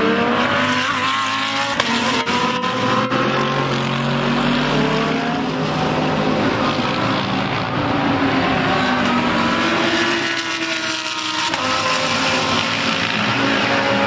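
Audi R8 LMS EVO II GT3 race car's V10 engine under hard acceleration, its note climbing and dropping back repeatedly through gear changes as the car passes and pulls away.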